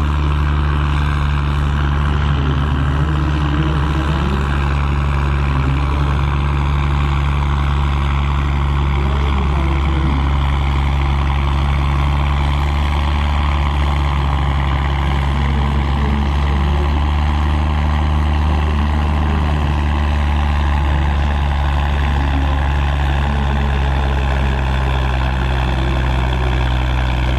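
Deutz tractor's air-cooled diesel engine running hard at steady, unchanging revs under heavy load while pulling a tractor-pulling sled.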